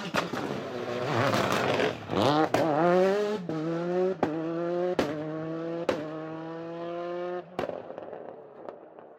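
Dubbed rally car sound effect: a rally engine revving hard, then pulling steadily with its note slowly rising, punctuated by sharp pops about once a second. The engine sound dies away near the end.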